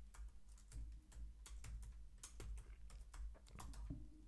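Faint typing on a computer keyboard: a quick, irregular run of keystroke clicks, several a second, as a command-line flag is typed in.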